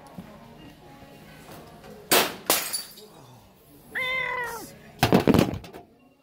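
Loud clattering crashes, as of store items knocked over and the handheld camera jolted, about two seconds in and again about five seconds in. Between them comes a short cry that slides down in pitch.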